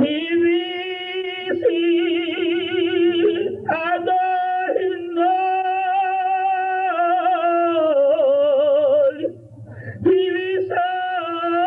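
A man chanting a prayer in long, wavering held notes, breaking off briefly about nine seconds in before resuming.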